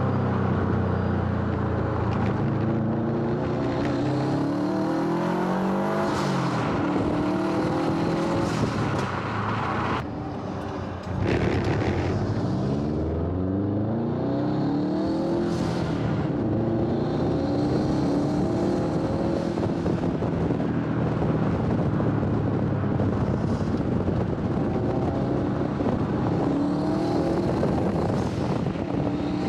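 Subaru WRX STI's turbocharged flat-four, tuned to about 420 hp, running under load through the gears: the engine note climbs in pitch again and again, with a short dip in level at a gear change about ten seconds in.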